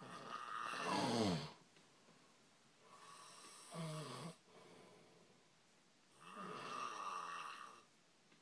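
A man snoring really loud in his sleep: three long snores about three seconds apart, the first the loudest and dropping in pitch as it ends.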